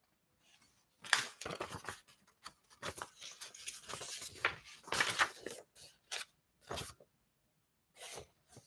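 Sheets of printer paper rustling and crinkling as they are handled and leafed through, in short irregular rustles that start about a second in.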